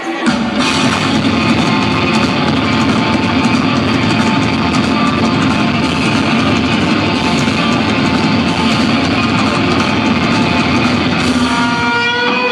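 Live rock band playing loud, with distorted electric guitars, heard from the crowd in a large arena. The full band comes crashing in about a quarter second in and plays on hard. Near the end it drops away, leaving a few held notes ringing.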